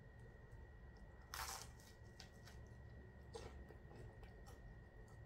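Quiet eating sounds: a short crunch about a second and a half in from biting into a toasted cheese baguette (zapiekanka), then a few faint chewing clicks.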